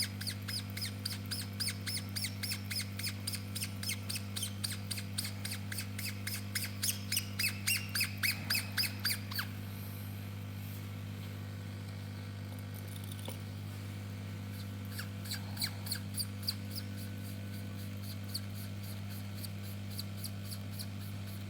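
Quick rhythmic squeaking, about four strokes a second, from rubbing back and forth while cleaning a COF strip; it stops about nine seconds in, leaving only a few scattered squeaks. A steady electrical hum runs underneath throughout.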